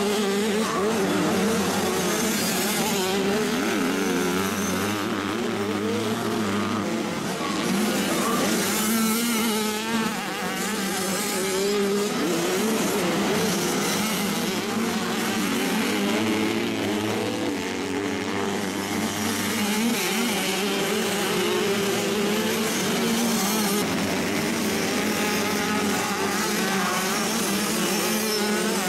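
Several motocross bike engines running at once, their pitch rising and falling as the riders work the throttle.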